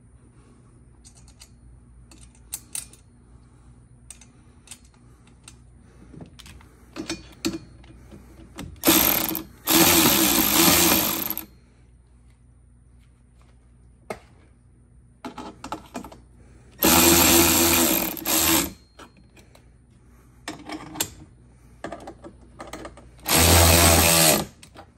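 Small cordless power driver with a socket running bolts into a golf cart's seat-belt bracket to tighten it down, in three bursts of about one and a half to two seconds each. Light clicks and knocks of metal parts being handled come between the bursts.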